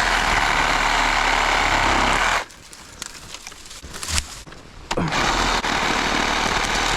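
Sawzall reciprocating saw cutting through tree wood in two bursts of about two and a half and three seconds, with a pause of a few seconds between them.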